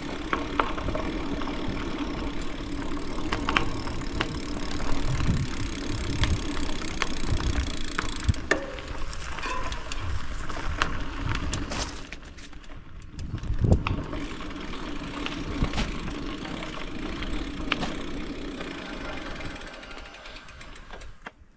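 Bicycle rolling along a dirt path, its tyres running over the ground and the frame and parts rattling with sharp knocks over bumps, the rear hub's freewheel ticking. A steady low rumble of wind sits on the camera microphone, and everything is quieter in the second half.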